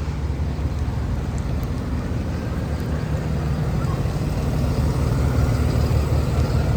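Heavy vehicle engine running steadily, a low even rumble under a hiss that grows slightly louder toward the end.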